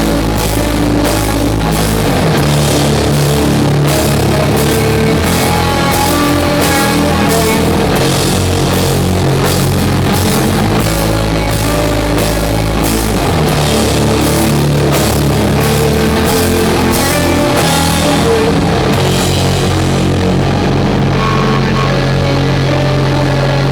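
Doom metal band playing live: loud, heavy rock with long held low notes and drum kit and cymbal hits at a slow, steady beat. The cymbals drop out about twenty seconds in, leaving the held notes.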